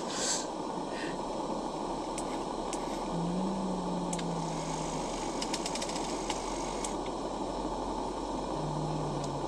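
A steady low rumbling noise with scattered light clicks, and two short low hums, about three seconds and nine seconds in.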